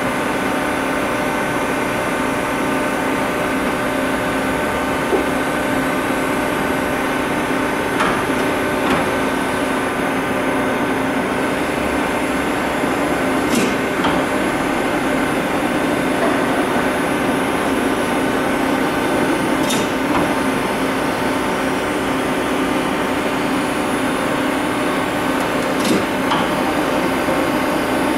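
Steady hum of powered industrial machinery, several constant tones over a noisy drone, with a sharp click about every six seconds.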